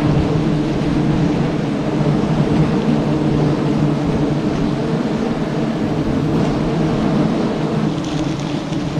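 Swarm of honeybees buzzing around the hive, a steady dense drone.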